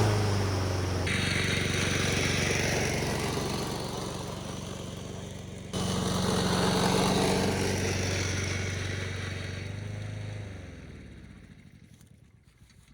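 Self-propelled push mower's small engine running steadily, its sound changing abruptly twice, then shut off about ten and a half seconds in and winding down with a falling pitch to a stop.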